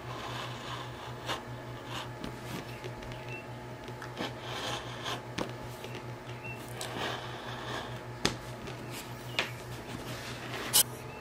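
Utility knife blade cutting through leather on a cutting mat: short scraping strokes, with scattered sharp clicks and taps as the leather is handled. A low steady hum runs underneath.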